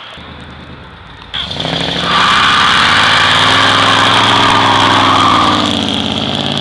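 A car's engine revs up hard about a second and a half in, and its rear tyres spin and screech through a burnout. The tyre noise is loudest for about three seconds, then eases off as the engine carries on.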